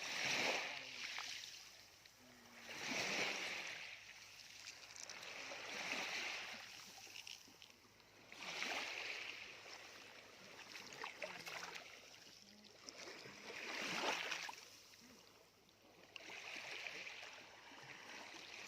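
Small waves washing up a sandy beach and draining back, a surge of hiss about every three seconds.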